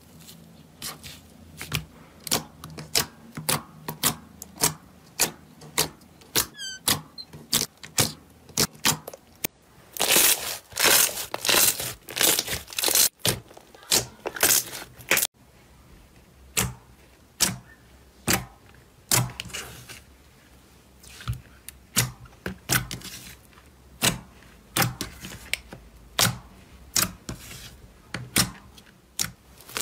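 Hands squishing and poking sticky clear slime, making a quick series of wet pops and clicks as trapped air pockets burst, a few to several a second, with denser crackling stretches.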